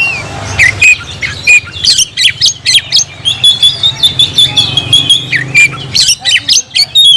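Oriental magpie-robin (kacer) in full song: a rapid run of sharp chirps and harsh squawks, with one long, steady high whistle from about three to six seconds in, the challenge song it uses to call out a rival.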